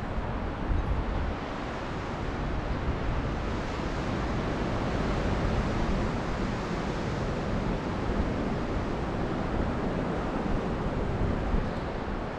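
Steady rushing of a mountain river, with gusty wind buffeting the microphone.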